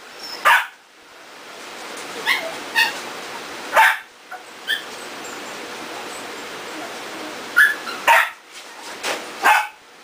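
Young Pembroke Welsh corgi puppies giving short, high yips and little barks, about nine scattered through, some in quick pairs.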